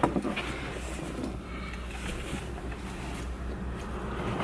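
Steady low hum inside a car's cabin with its engine idling in stopped traffic, with faint rustling of a jacket being taken off.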